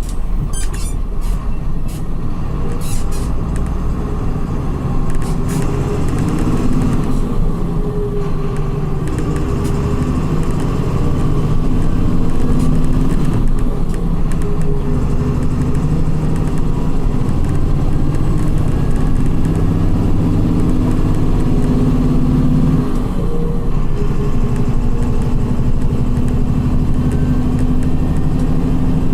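Volkswagen 17.230 EOD coach with a ZF gearbox driving along, heard from the driver's seat. The engine note shifts up and down several times with acceleration and gear changes, and a few sharp clicks come in the first few seconds.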